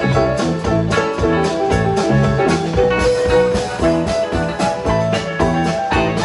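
Live band of electric guitars, keyboard and drum kit playing a fast country-rock shuffle over a steady drum beat, with a guitar note held about halfway through.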